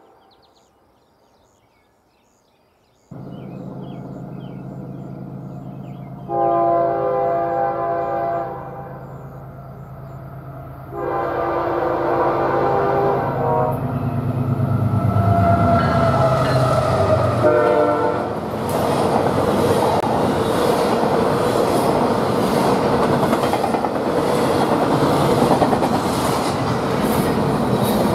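About three seconds in, BNSF diesel locomotives pull into earshot with a steady engine hum. Their Nathan air horn, listed as a K4H missing its 1L bell, sounds two long blasts, the second sagging in pitch as the engines pass, then a short one. The double-stack intermodal cars then roll by with steady wheel rumble and clickety-clack over the rail joints.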